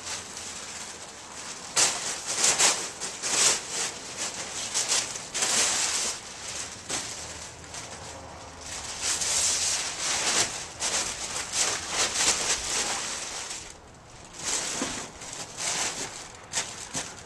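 A sheet of heavy brown paper moving pad being crumpled and fluffed up by hand and stuffed into a cardboard box, crackling and rustling in repeated bursts, with a short pause near the end.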